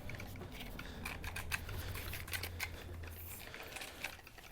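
Faint, irregular small clicks and scrapes of hands and a tool working on a drill's plastic housing, over a faint low hum.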